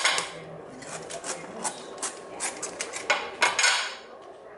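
Fresh banana leaves rustling and crackling as they are handled and folded around a whole milkfish on aluminium foil, in a series of crisp crinkling bursts, loudest at the start and again about three seconds in.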